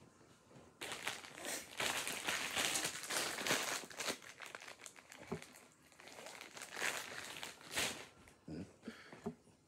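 Crinkling and rustling as a bundle of pipe cleaners is rummaged through and handled. There is a long stretch of rustling from about a second in, then more bursts near the end.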